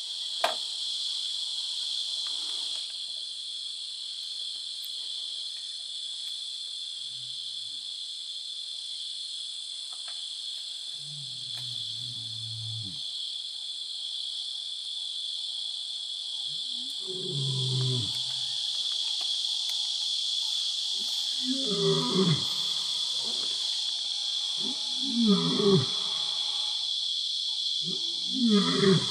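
Male lion's territorial roar: a few low moaning calls build into series of shorter, louder grunts in the second half. Crickets chirp steadily throughout.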